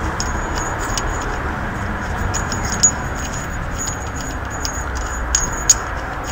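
Scattered light metallic ticks and clinks as the long centre bolt of a Holden Commodore's top idler pulley is turned out of the pulley by hand, over a steady background hiss.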